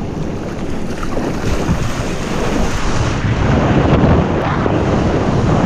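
Wind buffeting the camera microphone over rushing surf and spray as a kayak rides a breaking wave. The noise grows a little louder toward the end.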